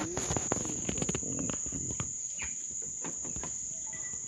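Insects chirping in one steady, high-pitched trill, with a few sharp clicks and knocks during the first couple of seconds.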